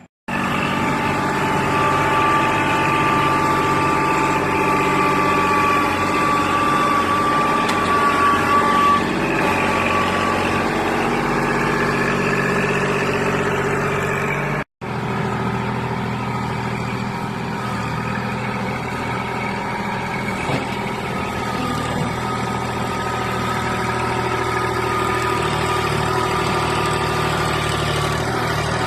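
An engine running steadily at a constant speed, with a brief dropout about halfway through.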